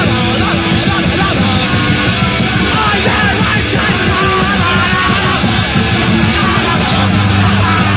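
Punk rock record playing loud: a full band with shouted singing, cutting in suddenly out of silence.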